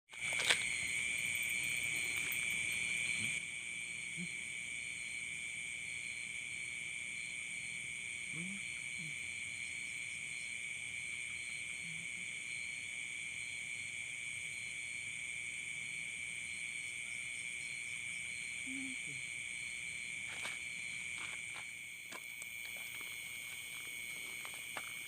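Night-time insect chorus of crickets: several steady, high-pitched trills overlapping, one of them pulsing rapidly. A few faint low calls sound now and then, and there are some brief clicks about four fifths of the way through.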